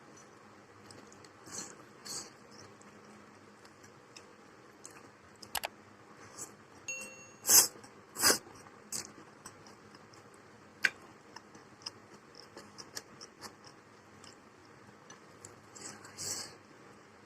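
A person eating: chewing and crunching with scattered small clicks, and two louder sharp knocks about halfway through.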